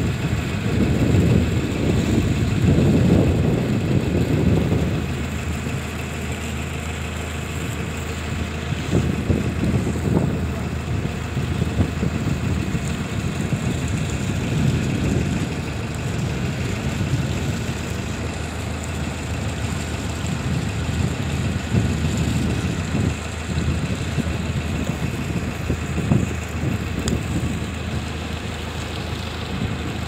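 Motor boat's engine running steadily, with wind gusting on the microphone, strongest in the first few seconds.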